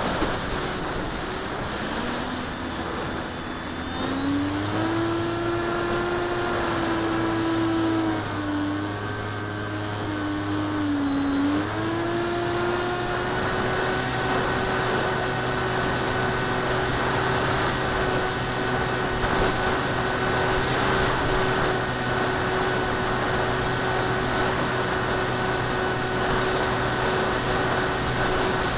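Electric motor and propeller of a ParkZone Icon A5 RC plane, heard from its onboard camera: a steady whine that climbs in pitch about 4 s in, dips a couple of times between about 8 and 11 s as the throttle eases, then rises again at about 12 s and holds steady.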